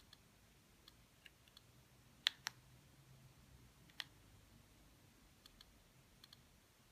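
Faint ticks from an iPod photo's click wheel as a thumb scrolls through the menus, in small pairs and singles, with three louder sharp clicks about two and a half and four seconds in, as the buttons are pressed.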